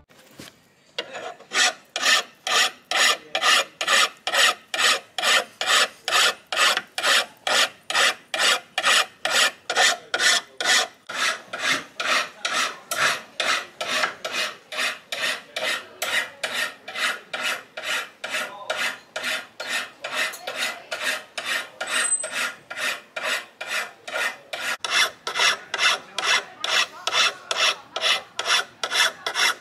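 Hand file rasping across the steel bevels of a forged bowie knife blade in steady, even strokes, about two or three a second, starting about a second in.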